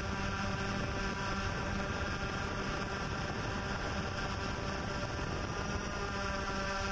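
Yuneec Typhoon H hexacopter drone's motors and propellers whirring steadily as it hovers low and descends: a hum of several steady tones over a constant rush of air.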